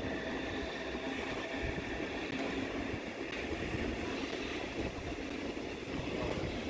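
Train moving through a station, a steady rumble.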